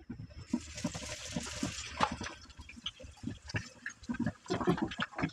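Sliced onions dropped into hot mustard oil in a frying pan, sizzling with a steady hiss and scattered crackling pops. The hiss begins about half a second in as the onions hit the oil.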